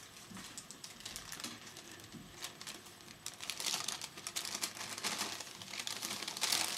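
Rustling and crinkling close to the microphone with rapid light clicks, getting louder about halfway through and loudest near the end.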